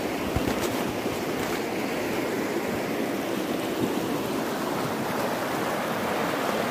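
Shallow, fast river rushing steadily over stones and pebbles.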